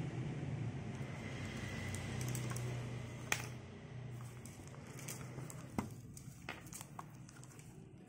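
Clear plastic display cases of 1:64 diecast model cars being handled: a few sharp plastic clicks and taps, the loudest about three seconds in, over a low hum that fades away during the first few seconds.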